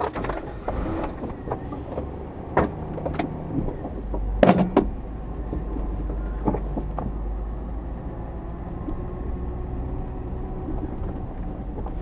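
Chevrolet Tahoe, which has a bad drive belt, running with a steady low rumble, with scattered clicks and knocks and one loud knock about four and a half seconds in.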